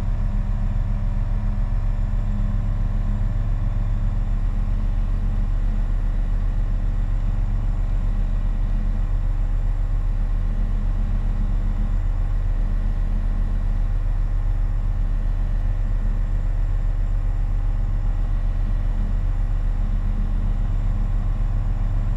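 Steady drone of a SportCruiser light sport aircraft's engine and propeller running at constant power in flight, heard from inside the cockpit.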